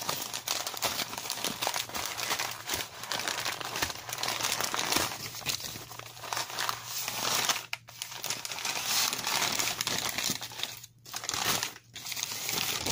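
Brown butcher paper and a plastic bag crinkling and crumpling as hands unwrap a raw salmon fillet. The rustling goes on continuously, with a few brief pauses near the end.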